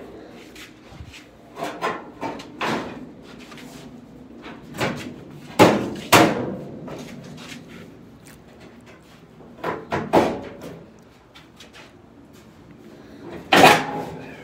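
Sheet-metal Mustang front fender knocking and clanking against the car body as it is lifted and set into place: a series of separate metallic knocks that ring briefly, the loudest a pair about six seconds in and one near the end.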